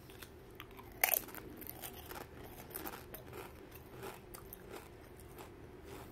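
A Pringles sweet potato crisp being bitten with one loud crunch about a second in, then chewed with a run of smaller, irregular crunches.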